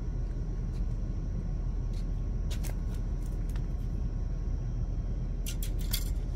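Steady low rumble, with a couple of sharp clicks about two and a half seconds in and a quick cluster of clicks near the end.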